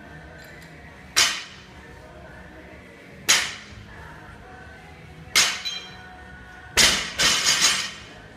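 Sharp impacts of a loaded barbell hitting the gym floor, about every two seconds in a repetition rhythm. The fourth, near the end, is followed by a second of rattling clatter.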